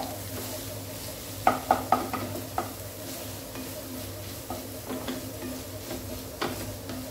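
Thinly sliced vegetables stir-frying on high heat in a non-stick pan, sizzling steadily. Short clicks and scrapes come as they are stirred against the pan, a quick cluster about one and a half to two and a half seconds in and a few more later.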